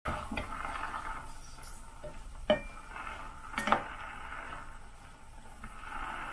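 A wooden spoon stirring cranberries in a stainless steel saucepan, knocking against the pan a few times, loudest about two and a half and three and a half seconds in. Under it runs a faint steady sizzle from the cranberries heating in the pan.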